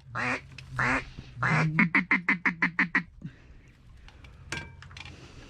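Duck call blown in loud hen-mallard-style quacks: two drawn-out quacks, then a long quack running into a quick string of about eight shorter quacks that tail off, calling to ducks circling the spread. A single sharp click with a brief ring follows later.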